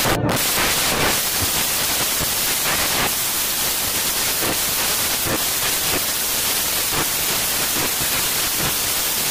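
Heavy rain falling steadily: a dense, even hiss, with a few faint taps here and there.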